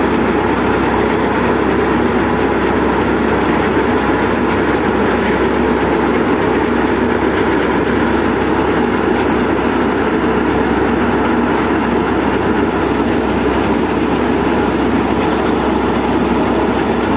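Wheat thresher running steadily while wheat is fed in: one constant loud mechanical drone without a pause.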